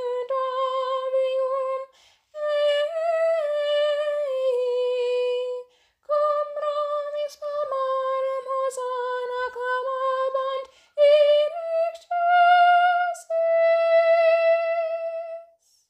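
A woman singing a Latin hymn solo and unaccompanied, in phrases with short breaths between them, ending on a long held note.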